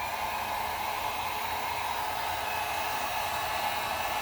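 Electric heat gun blowing steadily, shrinking heat-shrink tubing over a soldered wire splice.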